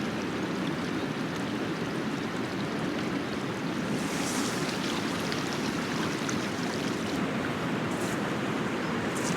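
The Deception River rushing steadily, an even wash of flowing water.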